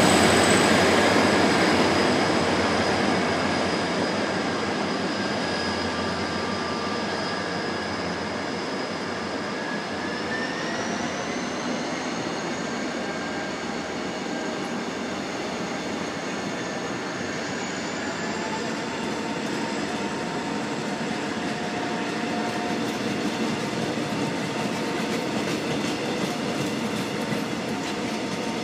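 Passenger coaches of a departing Korail train rolling past on the rails, loudest at the start and easing off. Thin high whining tones step up in pitch twice, about ten seconds in and again near eighteen seconds, as the train gathers speed.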